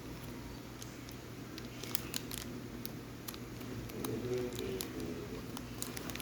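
Cards and card-book pages being handled: faint scattered clicks and rustles, a small cluster about two seconds in and more near the end, with a soft low hum about four seconds in.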